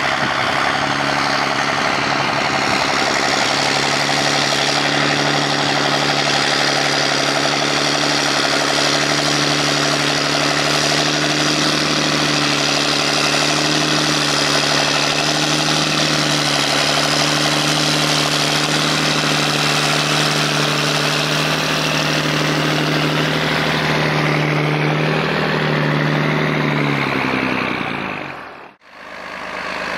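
A John Deere 8100 tractor's six-cylinder diesel engine runs steadily while the tractor pushes grass silage with a front silage fork. Near the end the engine pitch wavers, and the sound fades out briefly.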